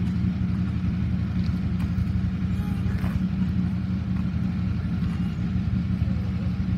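A road vehicle's engine idling, a steady low rumble with an even hum.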